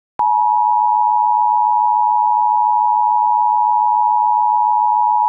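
A single loud, steady electronic tone near 1 kHz, starting with a click a moment in and holding without change: an emergency-broadcast-style alert tone closing the message.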